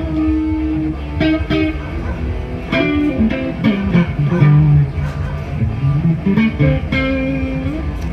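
Live band music with electric guitar playing melodic lines over a bass guitar.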